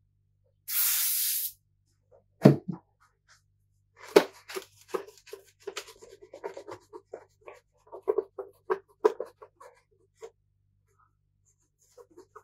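A short hiss of an aerosol spray about a second in, then a knock, then a cloth rubbing and wiping in quick irregular strokes over the plastic casing of a PlayStation 3.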